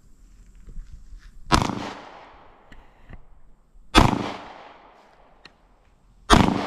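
Three 9mm pistol shots, roughly two and a half seconds apart, each a sharp crack trailing off in a short echo.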